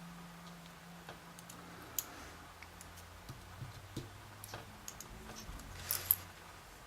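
Light, scattered clicks and taps of tweezers and small brass lock pins as pins are worked out of a disassembled pin-tumbler lock's chambers, with a short cluster of clicks near the end.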